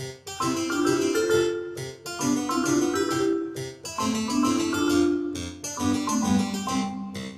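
Background instrumental music: keyboard chords under a melody of held notes that moves in steps.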